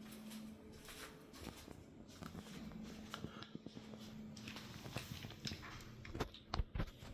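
Faint room sound with a low steady hum and scattered light clicks and knocks, a few louder knocks near the end.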